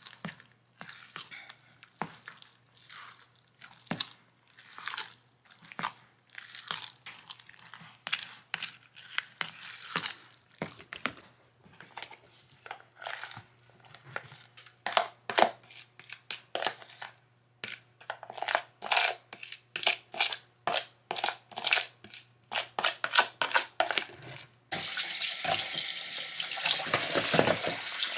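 A spoon stirs and scrapes a thick sausage-and-cheese mixture in a plastic bowl, making many short irregular scrapes and clicks, then scrapes it out into an aluminium foil baking pan. About 25 seconds in, a kitchen tap is turned on and runs steadily into the sink.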